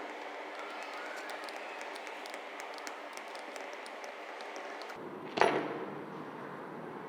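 Faint clicks and handling noise from hands working on the angle grinder's parts over a steady background hiss, then one sharp knock about five seconds in, as of a part or tool set down hard on the bench.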